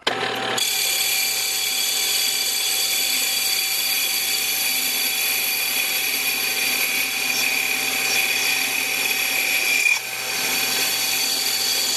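Small HQ400 combination lathe-mill-drill starting up and running at 500 RPM with a steady high-pitched gear-and-motor whine. It is turning a rusty Triumph motorcycle brake drum while a light cut of five thousandths per side is taken in the drum. The level dips briefly about ten seconds in.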